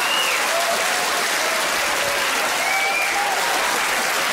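Large theatre audience applauding steadily, with a couple of voices calling out above the clapping.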